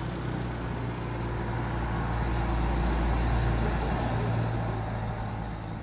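Pickup truck engine running as it drives by on a cobblestone road, growing louder to a peak a few seconds in and then fading.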